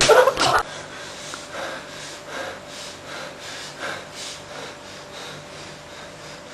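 A loud gasp from a person, then heavy, rapid breathing at a much lower level, over a faint steady hum.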